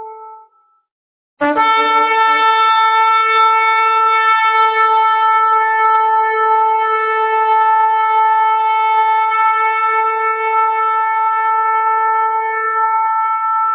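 Shofar (ram's horn) blown: one held note fades out about half a second in, then after a short pause a new long, loud, steady blast begins with a quick jump up from a brief lower note and is held without a break.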